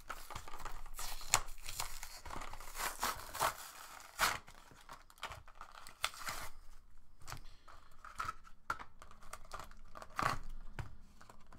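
A trading-card blister pack being torn open by hand: the cardboard backing ripping and the plastic blister crinkling. Dense tearing and rustling for the first six seconds or so, then sparser crinkles and clicks.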